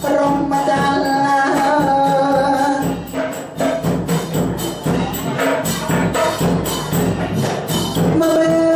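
A man sings tham khwan nak verses into a microphone in long, drawn-out melodic phrases, with light hand percussion keeping time.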